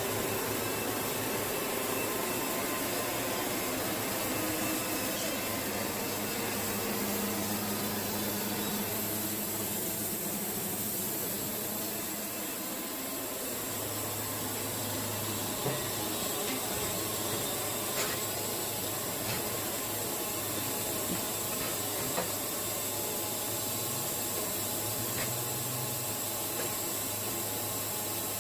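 Wood-Mizer band sawmill running, its blade cutting through a red cedar log: a steady hiss over a low engine hum, with a few faint ticks.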